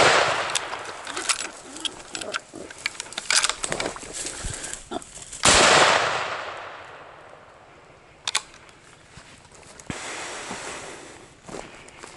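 Two .30-06 rifle shots: the first right at the start, its report dying away over about a second, and a second about five and a half seconds in that echoes for about two seconds. Scattered sharp clicks and knocks come between and after the shots.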